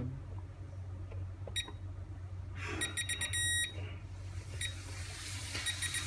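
Visonic PowerMax Express alarm panel keypad beeping as its buttons are pressed. There is a single short beep, a quick run of beeps ending in a longer tone near the middle, then more short beeps near the end.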